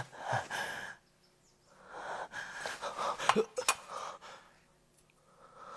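A person gasping in long, laboured breaths in three stretches, with a couple of short sharp clicks or knocks about three and a half seconds in.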